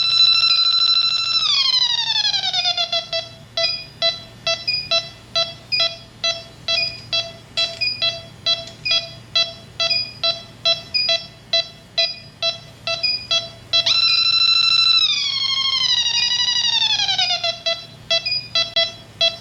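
Electronic refrigerant leak detector (Yellow Jacket) alarming: a steady high-pitched tone while its probe sniffs R-410A at the leak, sliding down in pitch as the reading clears into a slow ticking beep about twice a second. Near the end it jumps back to the steady high tone as it picks up the leak again, then slides down once more.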